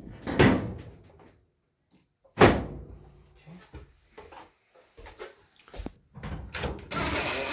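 Metal dryer cabinet panels being handled and fitted back into place: two loud clunks, then lighter clicks, and a sustained scraping rustle near the end.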